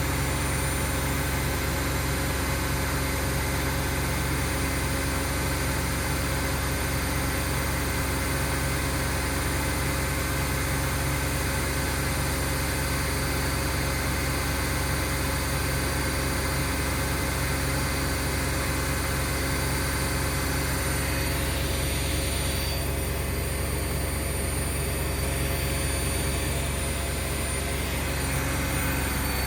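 Bosch Classixx and Hoover washing machines in their final spin: a steady, loud hum and whine of the drums turning at high speed. About 21 s in, part of the higher whine drops away as the pitch changes, as one machine begins to change speed.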